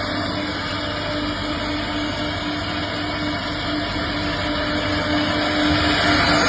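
CNC wood router running steadily, with a constant motor hum and a dense mechanical noise that grows slightly louder near the end.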